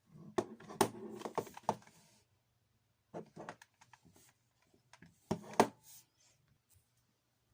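All-metal MPK M20 airsoft pistol being handled: sharp metallic clicks and clacks in three quick clusters, the loudest near the end.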